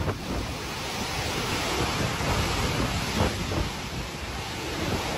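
Storm wind and heavy surf: a steady rush of gale-force wind buffeting the microphone over waves breaking against a seawall.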